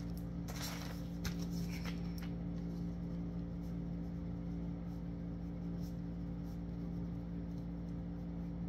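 Steady low drone of held tones, with a few soft taps and rustles in the first two seconds.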